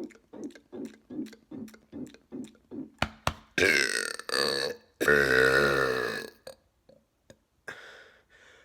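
A man's loud, deliberate mega burp: a rasping start about three and a half seconds in, then a longer pitched belch whose pitch wavers, lasting about a second and a half. Before it comes a run of soft, rhythmic mouth sounds, two or three a second.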